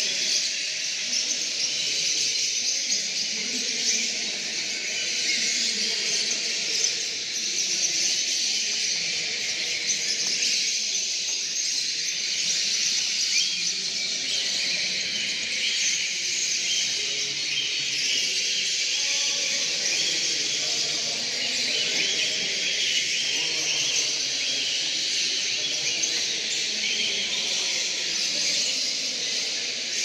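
A dense chorus of many caged canaries singing and chirping at once, a continuous mass of high trills and twitters, over a low background murmur.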